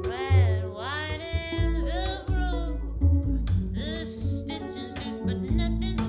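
A woman singing slow, gliding, held notes over an upright double bass and a guitar.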